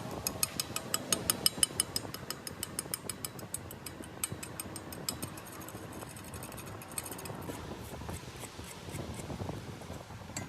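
Rapid mechanical clicking, about eight sharp clicks a second, that thins out and fades after about five seconds, over a low steady background noise.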